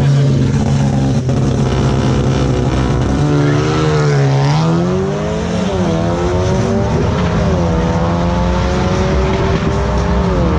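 Drag-racing car engines: a steady engine note at the start line, then from about three seconds in a car accelerates hard down the strip, its pitch climbing and dropping back at each of several gear changes.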